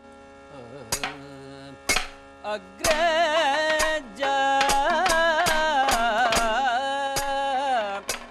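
Kathakali-style music: a singer holding long, ornamented notes, which grows much louder about three seconds in. Sharp percussion strokes keep time, about one a second at first and about two a second once the singing swells.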